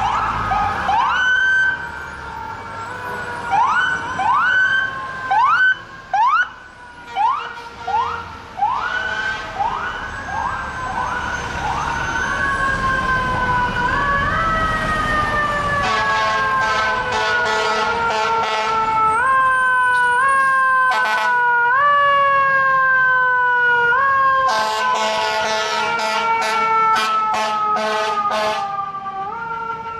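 FDNY fire apparatus siren wailing through traffic, its pitch snapping up again and again and sliding slowly back down each time. A rapid chopping pattern joins in during the second half.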